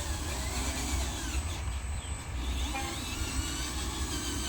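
Small electric motor of a handmade RC dump truck running steadily, with a constant high whine over a low rumble.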